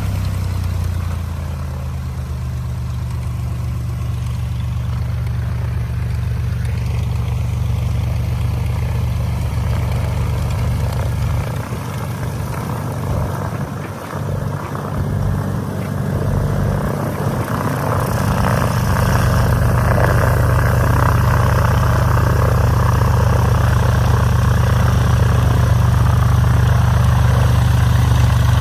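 The Lycoming O-540 six-cylinder engine and propeller of a 1964 Piper PA-25-235 Pawnee running steadily at low speed. The low drone weakens for several seconds in the middle, then fills back in slightly louder.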